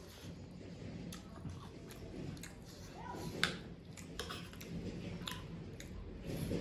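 Close-miked chewing and wet mouth noises of a person eating dal bhat, with many small clicks and one sharper click about halfway through.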